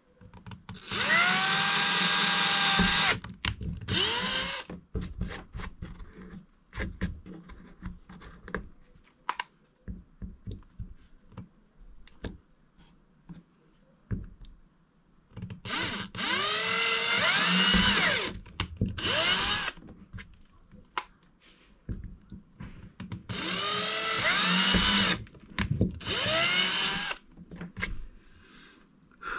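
Power drill with a thin bit boring pilot screw holes into a plastic kayak deck: three main runs, each followed by a short second burst, the motor whine rising as it spins up. Clicks and knocks of handling come between the runs.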